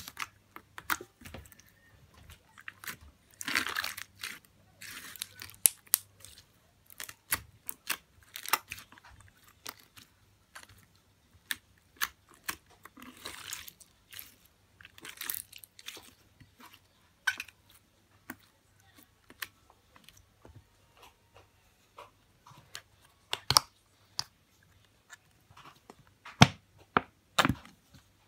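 Clear slime being squeezed and kneaded by hand, giving off irregular sharp clicks and pops with a few longer crackling stretches.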